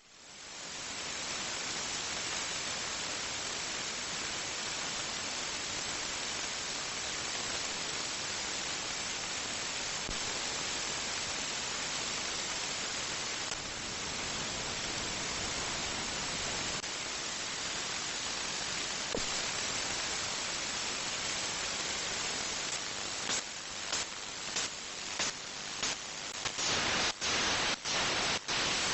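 Radio receiver on 146.328 MHz giving a steady static hiss, which swells in over the first second. From about two-thirds of the way through, short pulses break into the hiss about once a second, coming closer together near the end.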